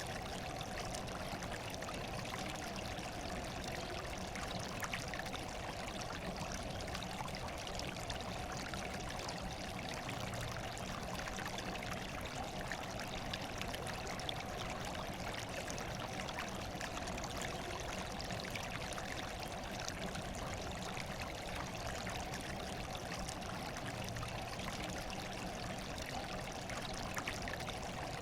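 Running water, a steady, even rush with no breaks or changes.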